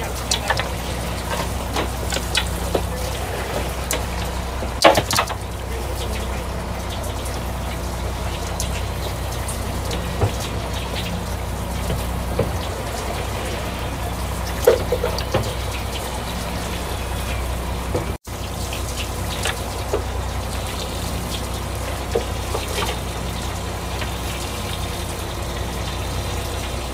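Fishing boat's engine humming steadily at idle, with water running and splashing along the hull, and a couple of short knocks about 5 and 15 seconds in.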